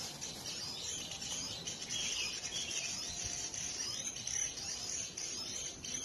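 Birds chirping in a few quick call phrases over a steady high-pitched insect drone.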